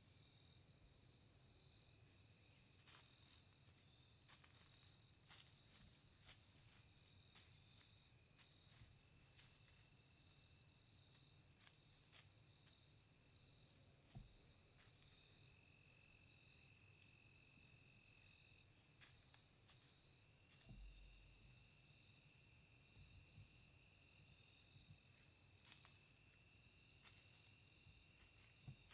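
A steady, high-pitched chorus of insects trilling without a break. A second, lower trill joins about halfway through, and faint scattered ticks can be heard.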